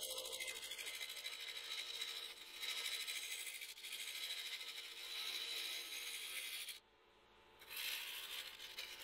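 Gouge cutting wood spinning on a lathe: a steady scraping hiss as the shavings peel off. The hiss stops for under a second about seven seconds in, then the cut resumes.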